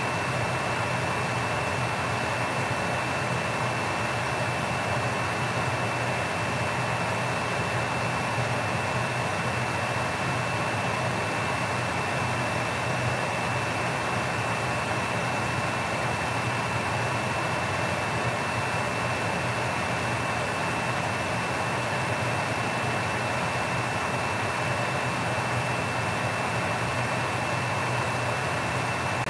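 Steady, even rushing noise at the stove, with a low hum and a thin high whine over it, while a lidded pot of crabs boils hard.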